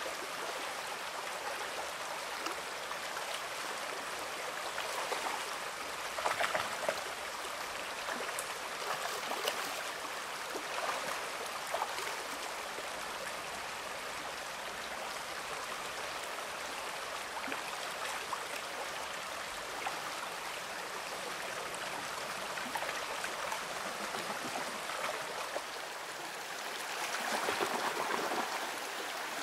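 Shallow creek water rushing and babbling over rocks in a steady flow, with a brief louder splashy swell about six seconds in and a longer one near the end.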